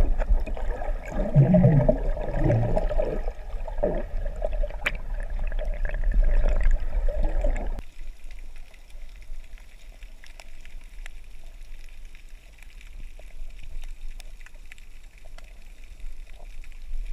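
Underwater sound heard through a camera's waterproof housing: loud bubbling and churning water as a sea lion swims close, trailing bubbles. About eight seconds in it cuts to a much quieter, steady underwater hiss with faint ticks.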